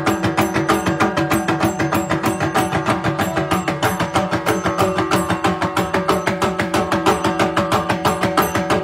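Live Koodiyattam percussion accompaniment: fast, even drumming with cymbal strokes, over a steady held pitched tone.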